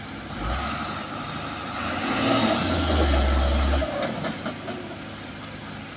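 Heavy diesel engines revving hard under load during the recovery of a fully loaded Mitsubishi Fuso dump truck stuck in a roadside ditch: a deep rumble builds about half a second in, is loudest past the middle, and drops off about four seconds in.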